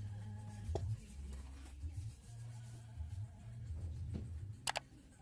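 Wooden boards being handled and laid on a timber beam: a few light knocks and some wood-on-wood rubbing, with a sharper click near the end, over a low rumble.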